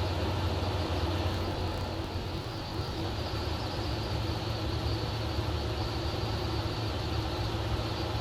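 Light aircraft engine and propeller droning steadily in the cockpit of a homebuilt Zenith CH-650 in level flight, a constant deep hum with no change in power.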